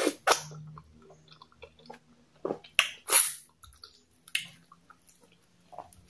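Close-up eating sounds of a mouthful of pounded yam with okra soup and goat meat: chewing with a series of sharp wet lip smacks and mouth clicks, the loudest near the middle.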